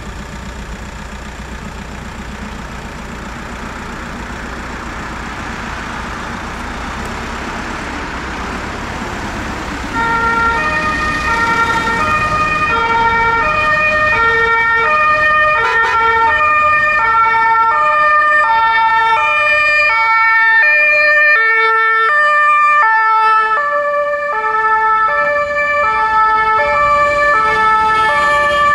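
Road traffic noise, then about ten seconds in an ambulance's two-tone siren (German Martinshorn) comes on loud, alternating between a high and a low tone, while the emergency vehicle drives through traffic.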